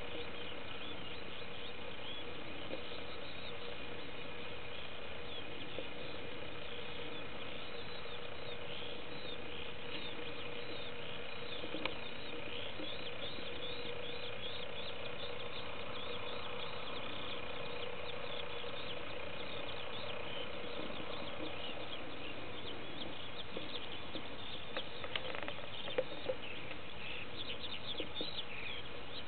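Small birds chirping and singing against a steady hiss and a faint constant hum, with a few soft knocks near the end.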